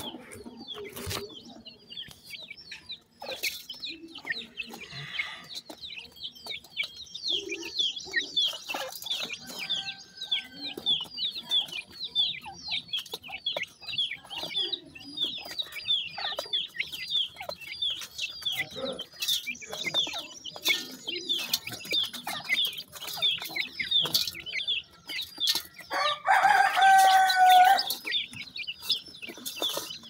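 Francolin chicks peeping: a steady run of short, high, downward-sliding chirps, a few each second, with scattered light clicks. Near the end a louder, lower call rings out for about two seconds.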